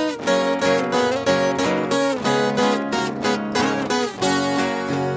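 Instrumental introduction of a sertanejo song on plucked strings: viola caipira with acoustic guitar, notes picked and strummed in quick succession.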